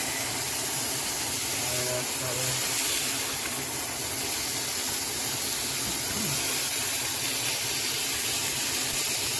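Ground beef sizzling in a hot frying pan as it browns, a steady hiss.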